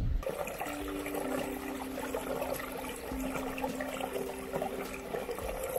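Small moorland stream trickling and babbling over rocks, with soft sustained music notes underneath.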